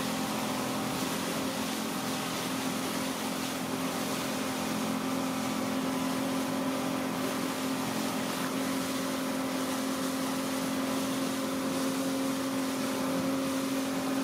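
Johnson 150 outboard motor running steadily at cruising speed, a steady drone over the rushing hiss of wind and wake water.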